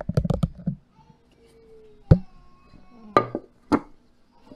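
A cloth being knotted tightly over a steamer lid: a quick flurry of rustling and handling clicks, then three sharp knocks spaced about a second apart as the lid and knot are worked by hand.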